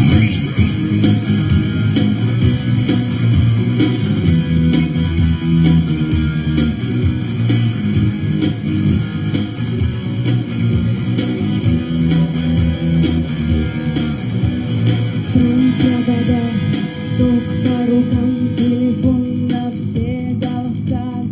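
Instrumental intro of a rock song: guitar over a bass line and a steady drum beat.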